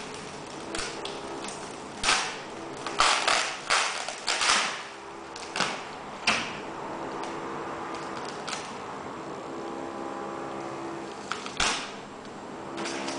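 Clear plastic wrapping crinkling and rustling in irregular bursts as it is pulled and crumpled off a cardboard box, busiest in the first half, with quieter stretches between.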